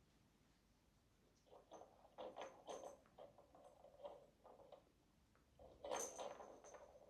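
Faint scuffling and rustling of kittens at play, a quick run of small knocks and scrapes, then a louder scuffle near the end.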